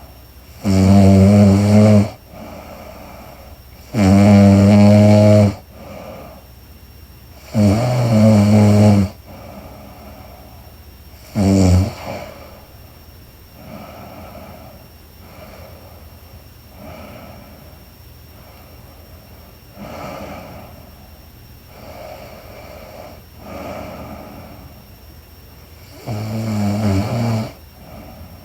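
A woman snoring in her sleep: long, loud, buzzing snores every three to four seconds, then a run of several much quieter breaths, and one more loud snore near the end.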